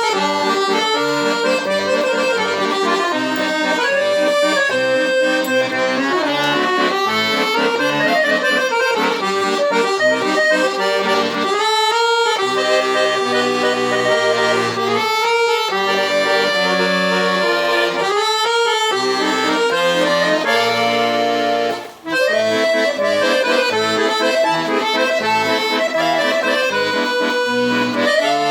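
Accordion playing a tune with chords, using a register set to imitate the musette sound of two detuned reeds, though the instrument has no musette tuning. The playing stops briefly about 22 seconds in, then carries on.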